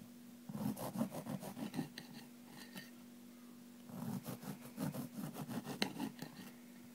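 Serrated bread knife sawing through a loaf of bread in quick back-and-forth rasping strokes. The cutting comes in two spells, one starting about half a second in and the other about four seconds in.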